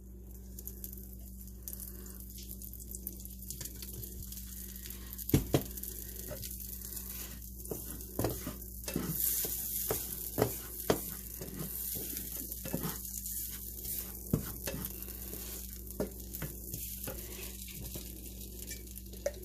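Turmeric paste made with coconut oil and broth sizzling in a hot pan, with a utensil stirring and scraping it and clicking sharply against the pan now and then.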